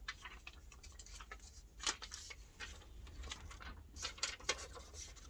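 Faint rustling and light clicks of heat transfer sheets being handled and leafed through, with a sharper tick about two seconds in.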